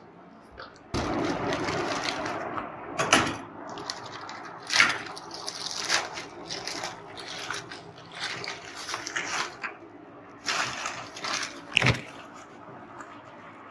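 Plastic courier mailer being opened and the plastic-wrapped bag inside rustling and crinkling as it is handled. The rustle starts suddenly about a second in, with a few sharp crackles along the way.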